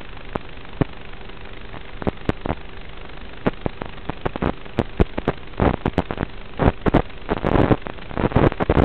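Steady hiss with a faint constant hum, broken by sharp crackles and pops that come thicker in the second half: static on an analog FPV video link's audio as the signal starts to break up.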